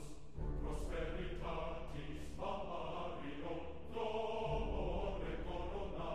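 Music with a group of voices singing in a chant-like choral style, in phrases about a second long.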